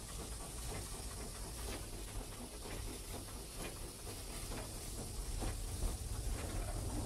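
Steam tank locomotive heard from its cab as it moves off: a steady hiss of steam from the open cylinder drain cocks over a low running rumble, with short knocks roughly once a second.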